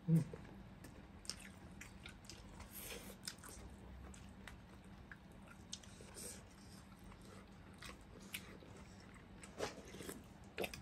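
Close-up eating sounds of two people chewing and biting fried fish and rice by hand: soft wet mouth clicks and smacks scattered throughout, with a brief low hum-like sound right at the start as the loudest moment.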